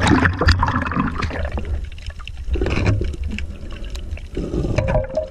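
Shallow seawater splashing and sloshing close to the microphone, with small knocks and a constant low rumble underneath.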